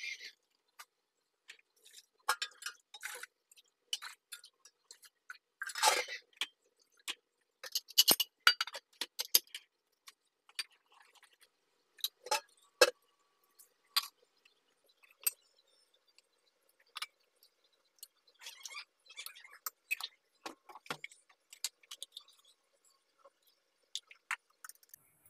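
Scattered clinks and clanks of stainless-steel kitchenware as a pressure cooker is closed on a gas stove and steel plates and bowls are moved about, with louder clatters about six, eight and twelve seconds in.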